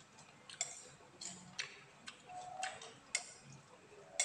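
A metal spoon clinking and scraping against a plate as food is scooped up, with several sharp clicks spaced about a second apart. Softer mouth noises of eating come between them.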